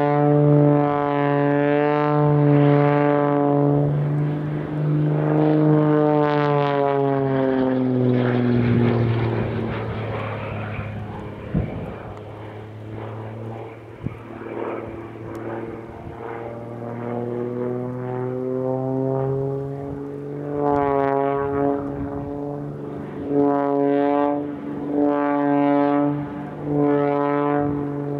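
Extra 330SC aerobatic monoplane's six-cylinder Lycoming engine and propeller flying aerobatic manoeuvres, a loud steady drone. About six seconds in the pitch falls and the sound fades, it stays quieter for several seconds, rises again around twenty seconds in, then surges and dips several times near the end.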